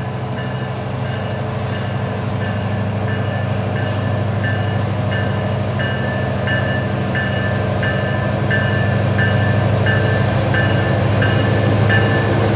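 Diesel locomotives at the head of a loaded BNSF coal train approach, their engine drone steadily growing louder as the train picks up speed. A bell rings steadily through it, about three strikes every two seconds.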